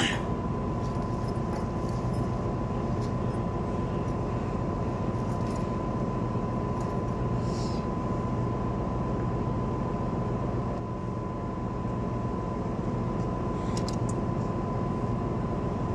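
Boat's engine running as a steady low drone, with a thin steady high tone over it.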